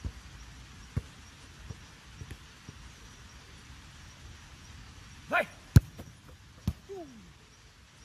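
A football being struck several times, with sharp knocks, the hardest about three-quarters of the way through. Short wavering calls come just before it and a falling call just after.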